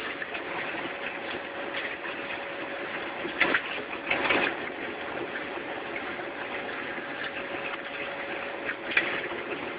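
Industrial meat grinder running steadily as it forces minced meat out through its plate, a machine hum with one steady tone running through it. A few brief louder noises come about three and a half, four and a half and nine seconds in.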